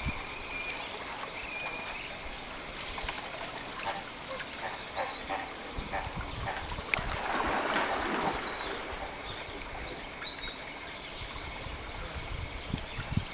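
Outdoor animal-enclosure ambience: a steady hiss with short, high chirps now and then, and a louder rush of noise about seven to eight seconds in.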